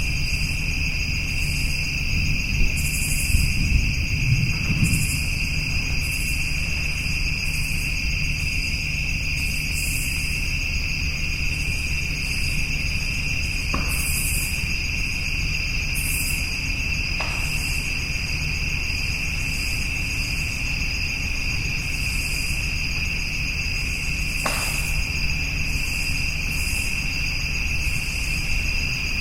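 Steady chorus of insects trilling at a constant high pitch, with irregular pulses of a higher buzz above it and a low rumble underneath. Three faint ticks stand out about halfway through and near the end.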